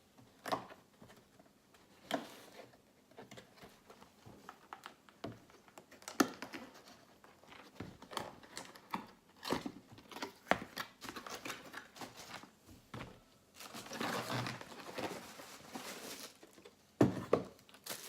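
A box being opened and its packaging handled during an unboxing. There are scattered clicks and taps, then longer stretches of paper or plastic crinkling and rustling in the last few seconds.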